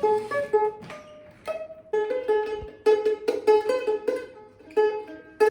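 Intro music: a plucked string instrument picking a bouncy melody of short, separate notes.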